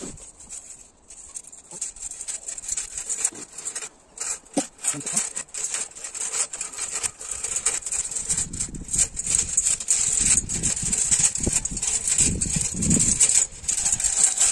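Mesh-drum compost spreader being pushed across a lawn: the rolling drum and its frame rattle and clatter as compost sifts through the mesh. There is a low rumble under it that grows louder about halfway through.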